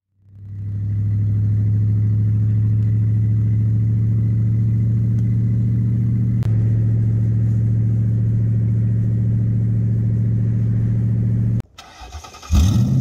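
Ford Crown Victoria's V8 engine droning steadily, heard inside the cabin while the car cruises at an even speed. The drone cuts off shortly before the end, and a different, louder engine sound starts in its place.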